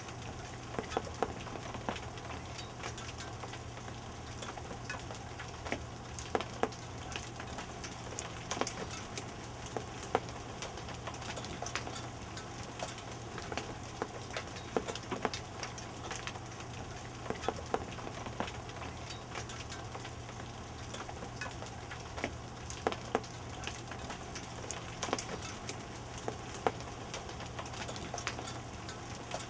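Hail and rain coming down: a steady hiss dotted with irregular sharp ticks of stones striking the ground and nearby surfaces.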